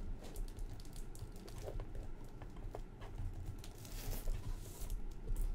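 Faint rustling and small taps of a cardboard card box being handled and turned over by hand, with a brief scrape about four seconds in.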